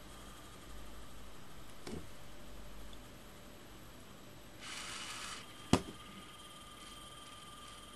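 Faint steady hiss with a thin high whine, a soft click about two seconds in, a brief rush of noise, then a single sharp click, the loudest sound, a little past the middle.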